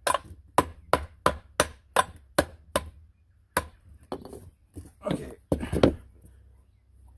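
Claw hammer striking the end of a flathead screwdriver in quick, even blows, about three a second, knocking an old plastic wear ring out of a Sea-Doo jet pump housing. The hammering stops about three and a half seconds in, followed by a few irregular knocks and scrapes as the screwdriver is reset against the ring.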